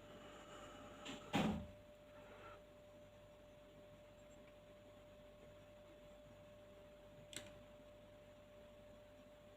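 A single knock about a second and a half in and a light click near the end, from small parts being handled, over a faint steady hum.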